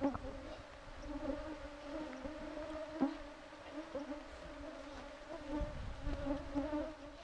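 A swarm of mosquitoes whining close around the microphone: several overlapping, wavering hums, with a light knock about three seconds in.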